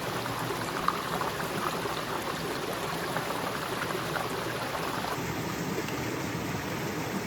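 Creek water flowing and babbling steadily over rocks.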